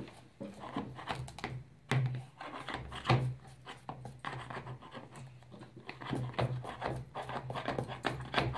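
Irregular small clicks, taps and scrapes of a spoon scooping baking soda from a cardboard box and of a plastic funnel knocking against a plastic bottle, one louder knock about three seconds in.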